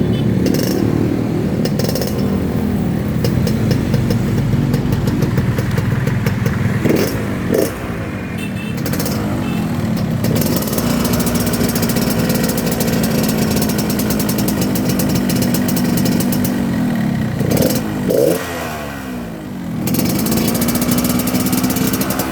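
Yamaha RX-King's two-stroke single-cylinder engine running on a test after a reed-valve membrane change. It is revved in quick blips about 7 and 18 seconds in, and held at a steady higher speed in between and near the end.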